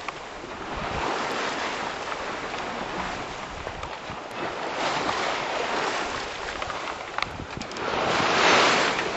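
Sea water rushing along the hull of a sailing yacht under way, coming in surges, loudest near the end, with wind buffeting the microphone.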